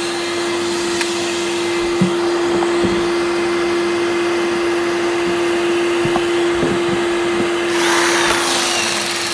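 Bosch vacuum cleaner running, its motor giving a steady hum over the rush of air, with a few light knocks. The rushing grows louder and brighter for the last second or so.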